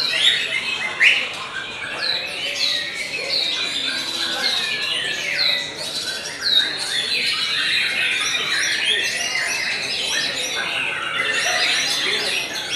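White-rumped shama singing a fast, varied song of whistles and harsh calls, with repeated down-swooping whistles, as other songbirds call over it.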